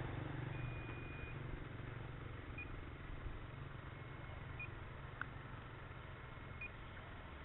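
Short high electronic beeps about every two seconds, after one longer beep near the start, over a steady low rumble and hiss.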